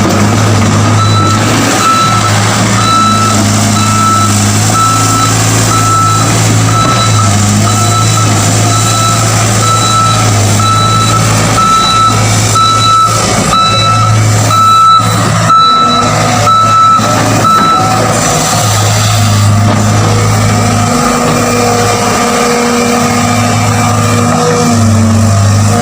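Excavator's diesel engine running steadily with its travel alarm beeping about once a second. The beeping stops about two-thirds of the way through while the engine keeps running.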